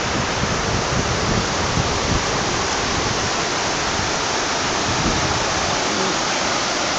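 Canal water pouring over a sloping concrete weir, a steady rushing roar of falling, churning water.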